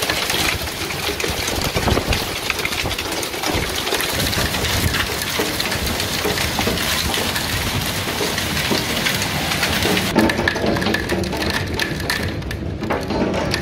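Hail pelting a wooden deck and balcony railing, mixed with rain: a dense, steady clatter of countless small hits. About ten seconds in the sound turns muffled and loses its hiss, heard from behind a glass door.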